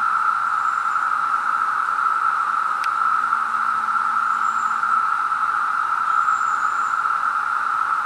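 Dense chorus of periodical cicadas: a loud, steady, unbroken whir. A faint click comes a little before three seconds in.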